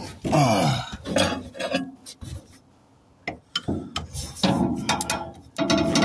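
Metal tools clanking and scraping as a lock-ring tool is set on a truck's fuel pump lock ring. From about four and a half seconds in, a ratchet on a long extension clicks rapidly as the ring is tightened.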